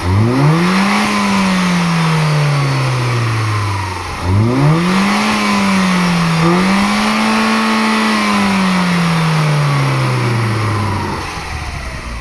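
Mini Cooper S Clubman's N14 turbocharged 1.6-litre four-cylinder being revved with an AEM performance intake, heard from the engine bay. The revs shoot up at the start, sag, shoot up again about four seconds in and hang high with a brief dip, then fall slowly back toward idle.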